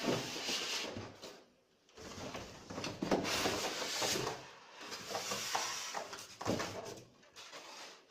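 Rustling and scraping of plastic and foam packing material in a large cardboard TV box as it is rummaged through, in several stretches with short pauses between them.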